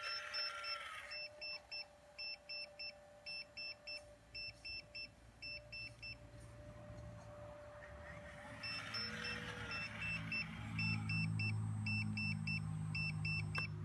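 Hydraulic RC CAT 336 excavator model working: its electric pump and motors run with a whine and a low hum that grows louder from about nine seconds in. An electronic beeper sounds in quick runs of beeps, about three or four a second, stopping for a couple of seconds in the middle.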